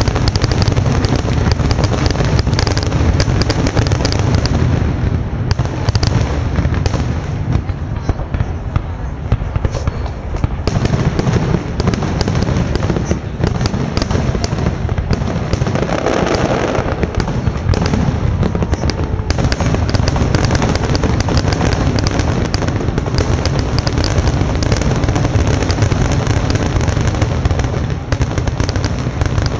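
A fireworks display: shells bursting in quick succession, dense bangs and crackles with hardly a pause.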